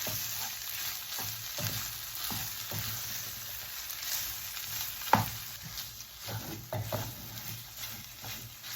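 Chicken, potato and onion filling sizzling in oil in a pan while being stirred, with a steady hiss and irregular scrapes and knocks of the spoon against the pan, the loudest about five seconds in.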